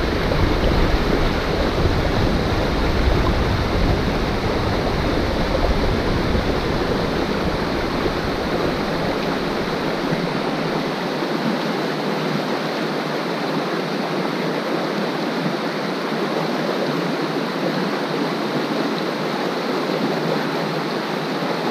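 Creek current rushing steadily, a continuous even wash of water noise. A low rumble underneath it drops away about halfway through.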